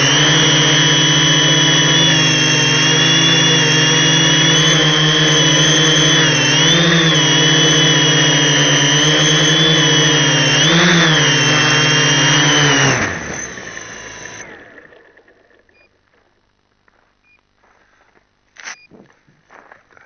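Multirotor's electric motors and propellers whining steadily in flight, with brief rises in pitch twice. About thirteen seconds in they spin down and stop. Near the end come a few faint clicks and knocks.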